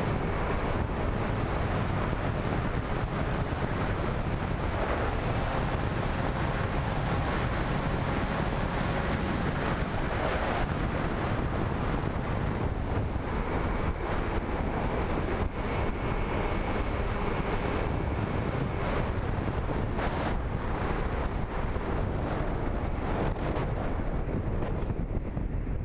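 Steady wind rushing and buffeting on the microphone of the camera riding on a radio-controlled flying wing in flight, heavy in the low end, in gusty wind.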